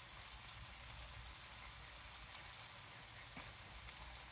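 Faint sizzling and crackling of chicken pasta in sauce cooking in a pan on the stove, over a low steady hum, with a small click a little past three seconds in.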